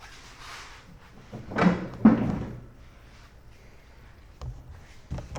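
Steel mower cutting deck being shifted and dragged out from under a riding mower: a scrape with a clatter about halfway, then a few sharp knocks near the end.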